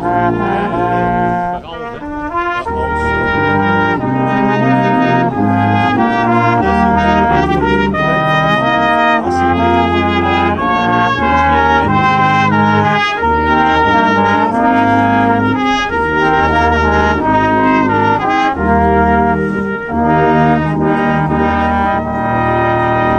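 Small brass ensemble playing a tune together: sousaphone, euphoniums, trombone and trumpets, with the sousaphone carrying a low bass line under the melody.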